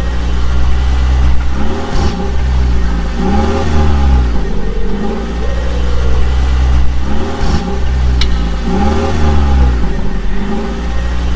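An engine revving up and down over and over over a steady deep drone, rising and falling in pitch about every two seconds.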